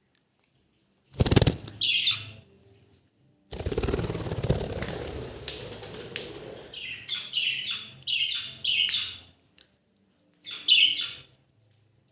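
Budgerigars chirping in short, high calls, in a quick run in the middle and again near the end, with wing flapping and a loud sudden flutter about a second in.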